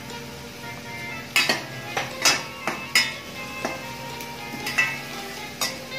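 A slotted spatula clinking and scraping against a stainless-steel kadai as spices are stirred into frying potatoes, about ten sharp clinks starting about a second and a half in. Faint background music underneath.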